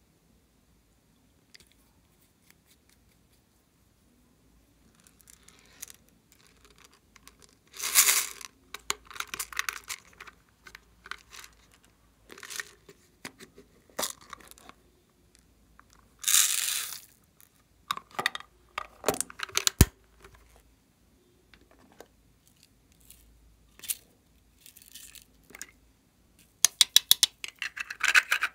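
Small plastic containers being handled and opened, with short rattling bursts as plastic beads are tipped out of a box into a glass dish, twice loudly. A sharp click comes midway and a quick run of plastic clicks near the end as a lidded tub is worked open.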